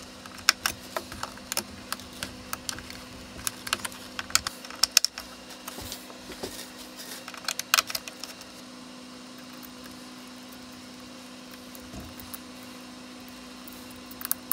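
Irregular light clicks and taps of a small screwdriver and crimped wire ferrules at a controller board's screw terminal block, coming thick for about the first half and then stopping, over a steady low hum; one more click near the end.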